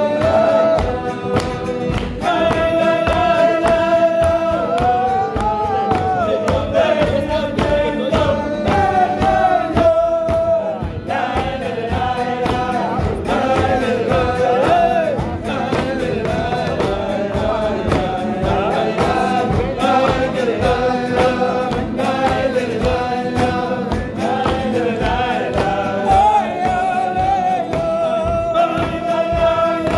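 A group of men singing a slow melody together, with long held notes that slide up and down between phrases.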